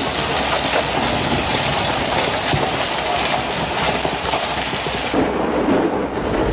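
Hail pelting down hard, a dense clatter of many small impacts on hard surfaces. About five seconds in the recording cuts to another stretch of storm noise.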